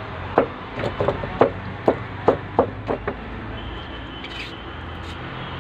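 Pointed scissors stabbed repeatedly into an electric hot water bag on a plastic stool: about ten quick, sharp knocks in the first three seconds, then only steady background noise.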